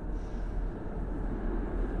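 Moscow Metro train running in the station, a low steady rumble that grows a little louder near the end.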